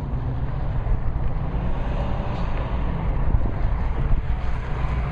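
Wind buffeting the microphone, an uneven low rumble, with a car's engine under it as the car runs a cone course in the distance.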